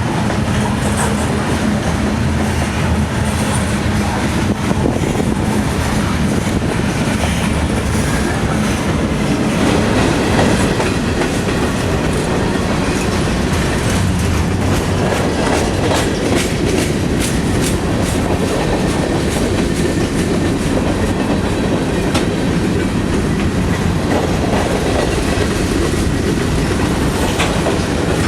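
CSX freight train rolling past, its wheels clicking steadily over the rail joints.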